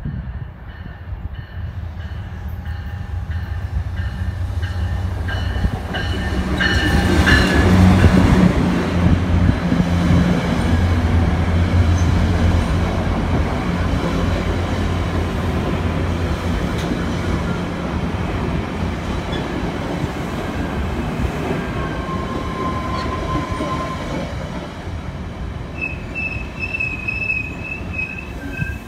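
Virginia Railway Express commuter train passing close by: the diesel locomotive's engine hum is loudest about eight seconds in, then the stainless-steel bilevel coaches roll past. Squealing wheels come in near the end.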